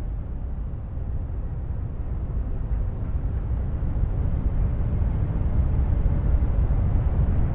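Aircraft engine rumble growing steadily louder as the plane approaches, with a faint high whine starting to fall in pitch near the end.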